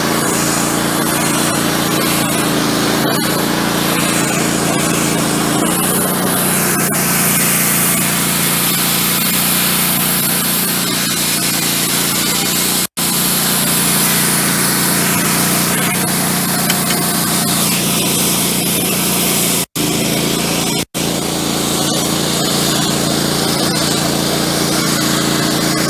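Wood-Mizer LT15 Go band sawmill running under load, its engine humming steadily while the band blade cuts through a frozen pine log with a dense hiss. The sound drops out completely three times, very briefly.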